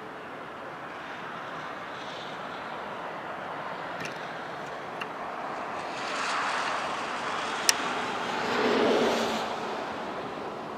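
Passing road traffic: tyre and engine noise swells as a vehicle goes by about six seconds in, and again more loudly about nine seconds in. There is a sharp click just before the second pass.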